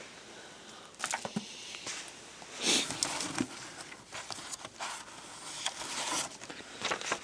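Comic books being handled and shuffled: irregular rustling and crinkling with sharp clicks, in bursts.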